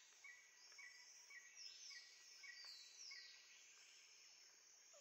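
Very faint birdsong: a short chirp repeated about twice a second, with several falling high whistles over it.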